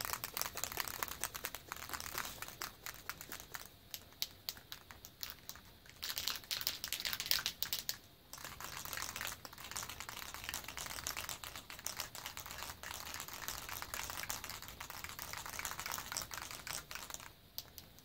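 Aerosol can of primer being shaken, the mixing ball rattling inside it in quick, dense clicks. The rattling pauses briefly about eight seconds in and stops near the end.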